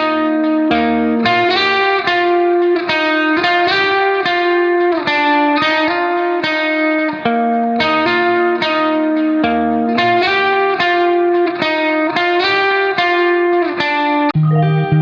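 Background music: a plucked guitar playing a steady, repeating melodic pattern of picked notes.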